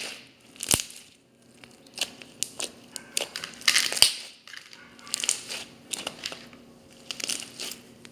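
Thick slime packed with foam beads being squeezed and pressed by hand, giving bouts of crunchy crackling and popping, about five squeezes with short pauses between.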